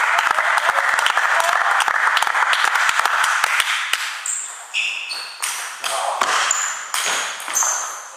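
Spectators applauding for about four seconds, the clapping thinning out. This is followed by a string of short, high-pitched pings and taps, typical of a table tennis ball bouncing on a table.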